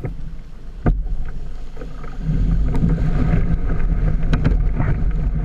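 Surf breaking and rushing around a kayak as it is paddled through the breakers, with wind buffeting the microphone; the rush of water grows louder about two seconds in. A single knock sounds about a second in.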